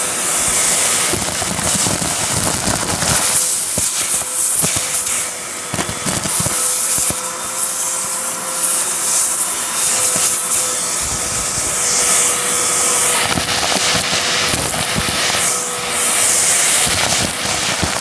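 Hoover upright vacuum cleaner running, its motor holding a steady whine under a loud rush of air that swells and fades as the hose and crevice tool work over the debris. Frequent crackling clicks as grit and bits of debris are pulled into the hose.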